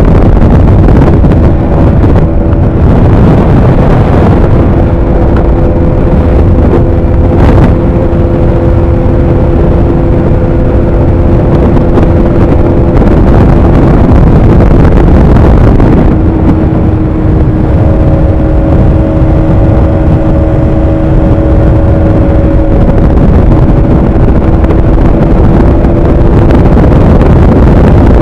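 Bajaj Pulsar 200NS single-cylinder engine running at a steady cruise, its note stepping to a new pitch a few times, under heavy wind rumble on the microphone.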